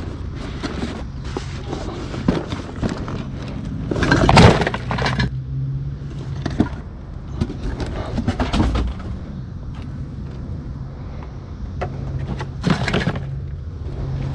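Scrap copper wire and metal being dropped and tossed, clunking and clattering in an irregular run of knocks. The loudest burst comes about four seconds in and another near the end, over a steady low engine hum.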